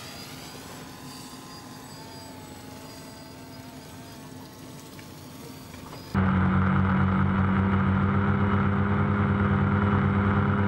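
Small quadcopter drone hovering, its propeller hum holding a few steady tones that waver slightly in pitch. About six seconds in, the sound cuts abruptly to a louder, low motor hum with a rapid pulse.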